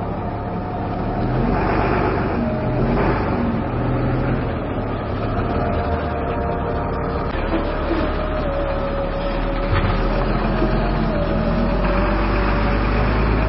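Livestock truck engines running steadily, a little louder from about a second and a half in.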